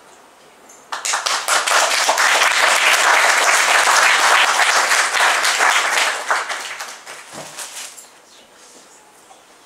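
Audience applauding: the clapping breaks out suddenly about a second in, holds for about five seconds, then dies away over the next two.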